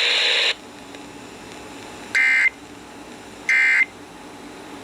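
NOAA Weather Radio EAS/SAME end-of-message data bursts: short, buzzy digital tones about 1.3 s apart, two of them with a third just starting at the very end, marking the end of the warning message. A steady radio hiss cuts off about half a second in, before the bursts.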